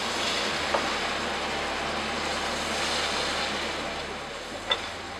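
Pieces of lamb and vegetables sizzling steadily as they brown in a wide metal pan, with a couple of faint clinks of the metal spoon against the pan.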